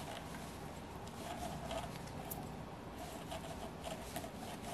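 Faint handling sounds: small ticks and light scrapes as a bent metal needle valve is worked into a small model diesel engine.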